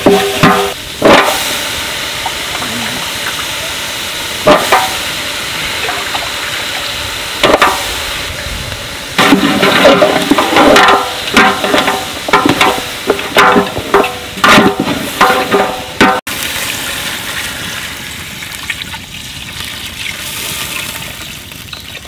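Frying sizzle in a large aluminium pot, with a long metal ladle scraping and knocking against the pot as onions, tomatoes and goat legs are stirred. Strokes come singly at first, then in quick clusters. After that a steadier rush of water is poured into the pot.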